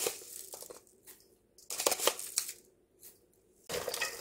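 A spoon scraping salt out of a jar and scattering it onto shredded radish and carrot in a stainless steel bowl: a few short scrapes and clicks. Near the end, hands start tossing the shredded vegetables, a continuous rustling.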